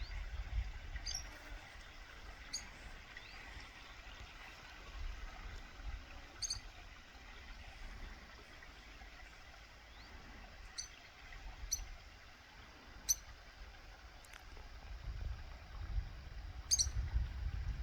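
Bird chirping: about eight short, high chirps at irregular intervals of one to four seconds, over a low rumble.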